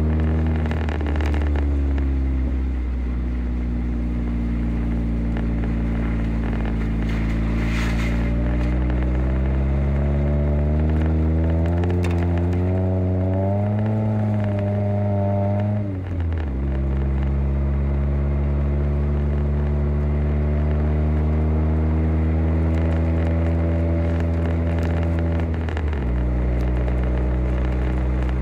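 Car engine heard from inside the cabin while driving on packed snow. Its pitch climbs slowly, then drops suddenly at gear changes, about halfway through and again near the end, with tyre crackle underneath.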